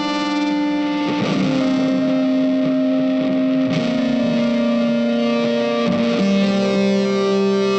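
Background music: a distorted electric guitar playing long held notes that change every second or two.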